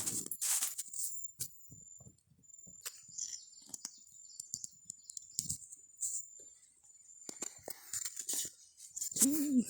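Irregular scraping, rustling and clicking, with a steady high-pitched insect drone behind it. A short pitched vocal sound comes near the end.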